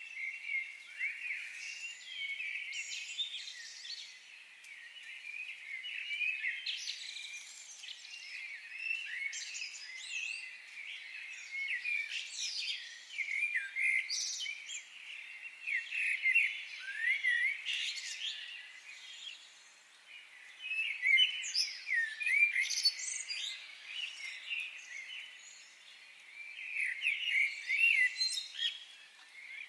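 Several songbirds chirping and singing at once: a dense, overlapping chorus of short high chirps and quick trills that swells and eases every few seconds, loudest about two thirds of the way in.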